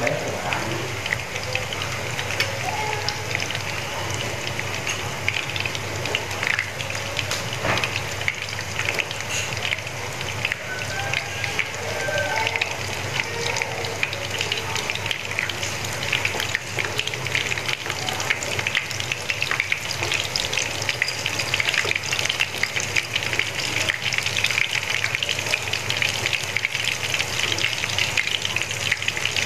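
Battered small shrimp fritters frying in hot oil in a pan: a steady sizzle full of fine crackles, getting a little louder about halfway through.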